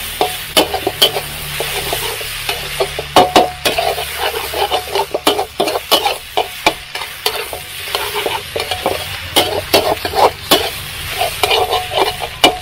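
A spatula scraping and clanking against a wok as eggs are stir-fried, with constant sizzling from the hot pan. The strokes come in quick, irregular clatters.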